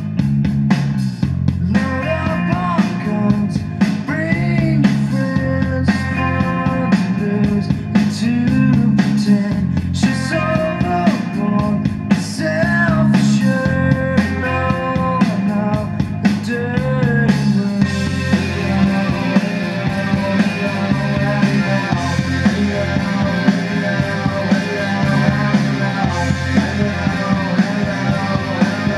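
A rock song playing through a hi-fi stereo: a Sony TA-F707ES MOS-FET integrated amplifier driving a pair of floor-standing speakers. A little over halfway through, the music turns denser and brighter.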